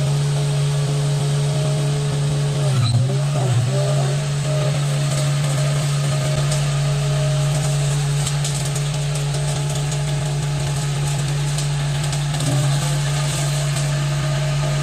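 Skid steer loader engine running at a high, steady speed, with a brush cutter attachment fitted. Its pitch sags briefly twice about three seconds in, and slightly once more near the end.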